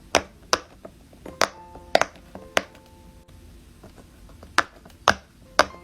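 A fidget toy being handled, making sharp clicks at uneven intervals, about eight in all with a pause of about two seconds in the middle. Faint music runs underneath.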